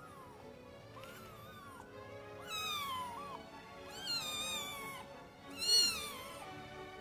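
Kitten meowing: four high-pitched meows about a second apart, the last the loudest, over background music.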